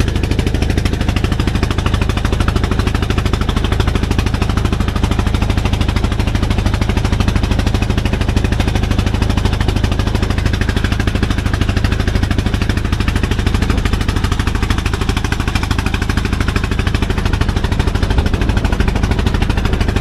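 Fishing boat's inboard engine running steadily under way, a loud, fast, even knocking beat that does not let up.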